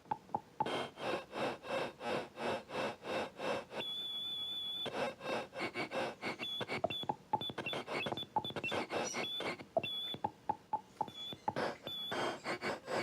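Bastl Kastle v1.5 mini synth putting out glitchy electronic sound: a run of buzzy pulses at about four a second, a high whistling tone that cuts in and out, and short blips and clicks.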